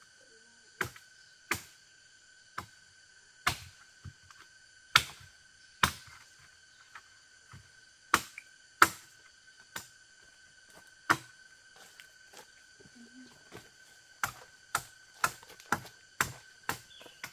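Chopping with a blade: about twenty sharp strikes at irregular intervals, with a pause in the middle and a quicker run near the end. A steady high insect drone runs underneath.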